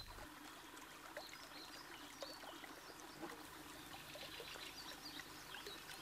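Faint trickling and lapping of river water, with a few faint high chirps scattered through it.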